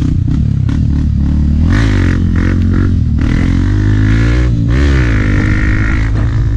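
Dirt bike's single-cylinder four-stroke engine running under throttle on a trail, its pitch falling and rising again as the rider rolls off and back on about twice. A higher whine runs alongside the engine for much of the time.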